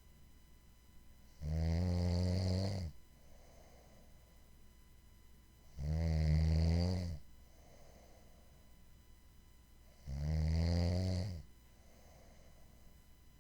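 A person snoring: three loud, low, rattling snores about four seconds apart, each lasting about a second and a half, with a faint breath between them.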